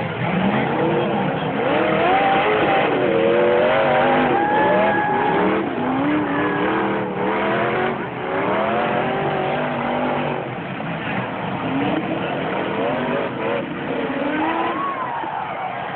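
Demolition-derby pickup trucks' engines revving up and down, several at once, their pitch rising and falling in long glides over a steady din.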